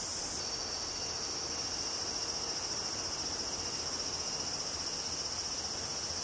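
Steady high-pitched chorus of insects droning in woodland, changing slightly about half a second in.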